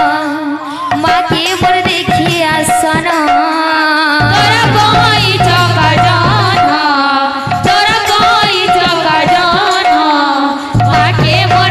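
Sambalpuri devotional kirtan: a woman sings through a microphone over drum accompaniment.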